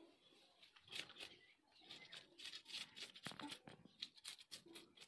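Scissors snipping the fins off a rohu fish: faint, crisp snips and crunches through fin and skin, one about a second in, then a quick run of them from about two seconds on.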